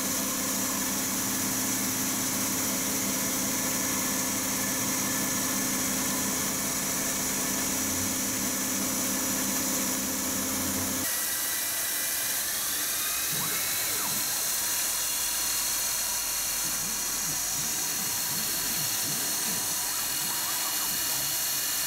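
Milling machine cutting aluminium: an 8 mm end mill machining bolt-head pockets into a plate, running steadily. About eleven seconds in the sound changes abruptly to a chamfer tool deburring the hole edges, with a high spindle tone that rises and then holds.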